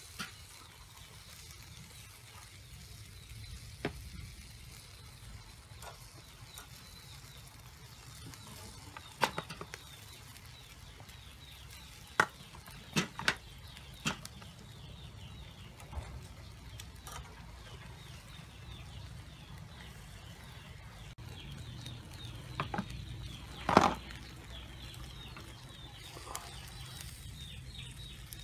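Chicken wings sizzling faintly on a wire grill over charcoal, with scattered sharp taps and clicks as more wings are laid on the metal grate. The loudest knock comes near the end.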